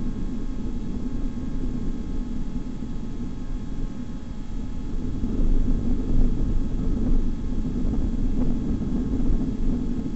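Vehicle engine running with a steady low rumble that grows a little louder about halfway through.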